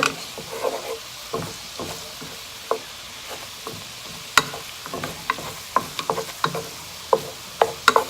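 Garlic sizzling in melted butter in a pan as it toasts, with irregular sharp clicks and scrapes of a utensil stirring it against the pan.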